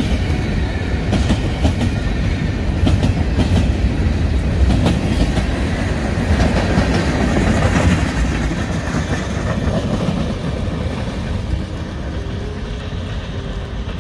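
Freight train cars rolling past close by: a heavy rumble with the wheels clicking over the rail joints, picking up speed. The sound eases over the last few seconds as the end of the train passes and moves off.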